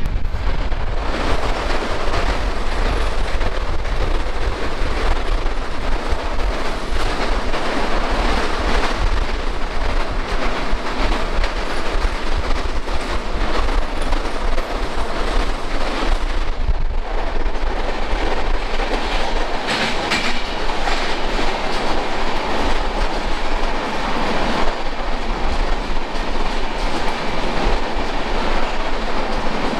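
Hemkunt Express passenger train running at speed, heard from an open coach doorway: a steady rumble and clickety-clack of the wheels on the rails as it crosses a steel truss bridge, with wind buffeting the microphone.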